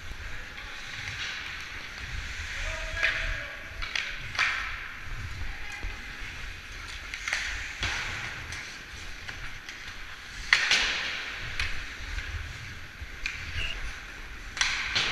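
Hockey skate blades scraping and carving the ice, a steady hiss broken by several sharp scrapes, the loudest about ten seconds in, over a low rumble of wind on the moving camera's microphone.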